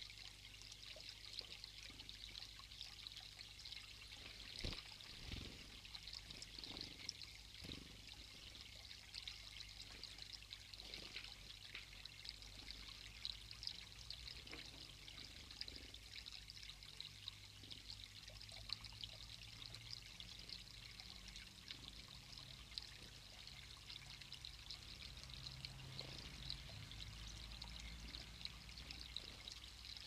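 Faint, steady sound of water running from a hollowed-log spout of a garden water feature into the pool below.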